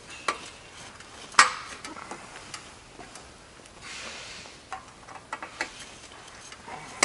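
Small plastic caps snapping into the tops of a conveyor's steel leg tubes: a few sharp clicks, the loudest about a second and a half in, then a brief rustle and several light ticks of handling.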